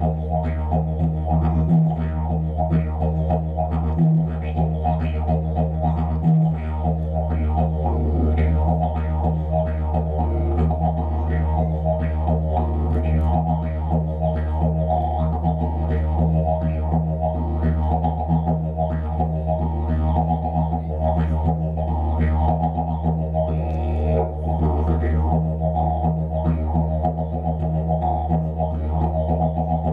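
Didgeridoo played live: a steady low drone with a quick rhythmic pattern of sharper accents over it. In the first few seconds the drone breaks off briefly about every two seconds, then runs unbroken.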